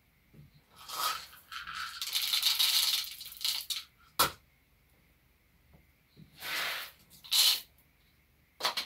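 Whole dried corn kernels rattling as they are scooped and poured through a plastic funnel into a flannel heat pad, in pours of a second or two. Sharp single knocks come about four seconds in and near the end.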